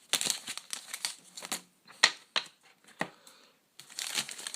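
Plastic wrapping of a Pokémon card pack crinkling as it is handled and pulled open, in irregular bursts with a sharper crackle about two seconds in.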